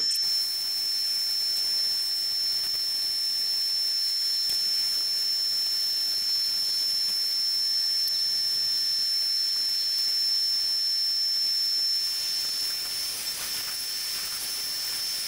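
Bandsaw running and cutting a wooden handle blank: a steady hiss with a constant high whine.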